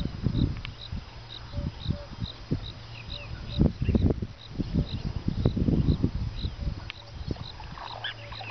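A high insect chirp repeating about twice a second, over irregular low thumps and a steady low hum.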